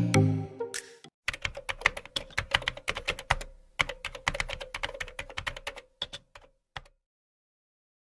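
A few notes of music end about a second in. Then comes rapid, irregular clicking like fast typing on a keyboard for about five seconds, which stops abruptly into dead silence.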